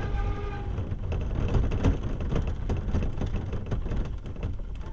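Soapbox gravity racer rolling off the tarmac onto grass, its wheels rumbling and its body rattling over the bumps. The rumble slowly eases as the cart loses speed.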